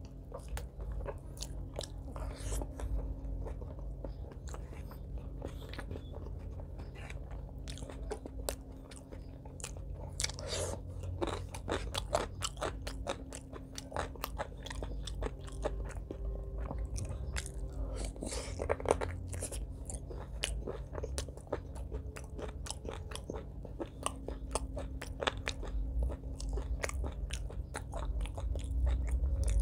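Close-miked chewing and biting as a man eats chicken liver and gizzard curry with rice by hand, with many sharp, wet mouth clicks throughout.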